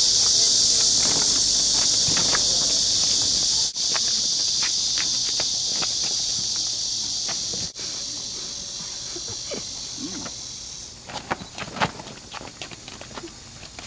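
Insects droning: a steady high-pitched buzz that stops abruptly about eleven seconds in. Light scuffs and clicks from shuffling steps on asphalt run underneath and stand out after the buzz stops.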